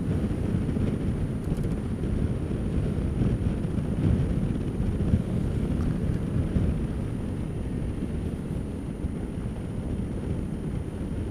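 Steady low rumble of wind on an action camera's microphone while riding a Honda Dio single-cylinder scooter, with the scooter's engine and tyre noise blended in.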